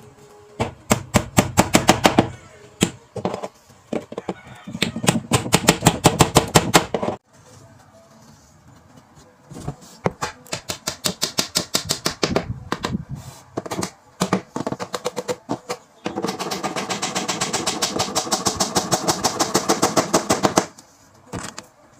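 A hammer tapping small nails into thin wooden cabinet trim, in quick runs of light blows several times a second, with short pauses between the runs.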